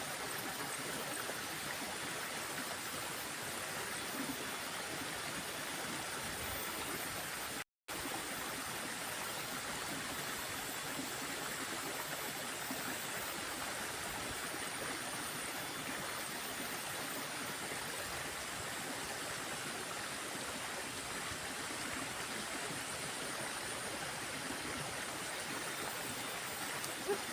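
Water in a small stream flowing, a steady, even rush; it cuts out for an instant about eight seconds in.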